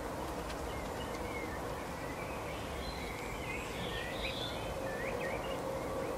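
Small songbirds twittering: short chirps, some rising and some falling, clustered between about two and five seconds in, over a steady background hiss with a faint low hum.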